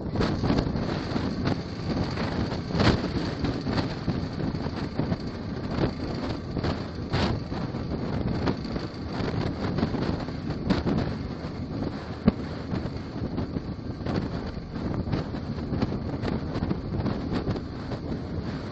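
Wind buffeting a microphone on top of a haul truck that rides on a lowbed trailer at highway speed, over a steady rumble from the tractor-trailer rig and the road. A few sharp knocks or rattles cut through.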